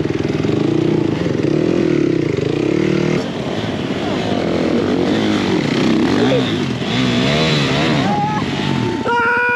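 Dirt bike engines. First one close bike runs at steady revs. After a cut, several bikes rev up and down as they climb out of a rocky stream, and near the end one engine is held at high revs.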